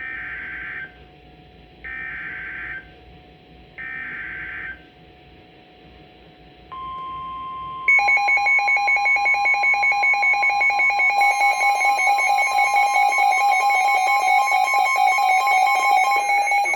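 NOAA Weather Radio severe thunderstorm warning alert. Three short warbling SAME data bursts come about two seconds apart, then the steady 1050 Hz warning alarm tone starts. About a second after it, a louder, rapidly pulsing electronic alarm from the weather radio receiver joins and keeps going.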